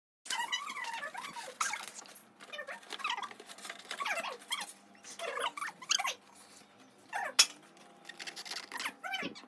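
A pet animal crying in repeated short, high calls that bend in pitch, with a single sharp click about seven seconds in and a faint steady hum underneath.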